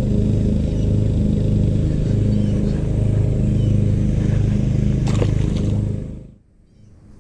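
A steady, low engine drone, wavering slightly in strength, with one sharp click about five seconds in. The sound drops away abruptly about six seconds in and slowly comes back near the end.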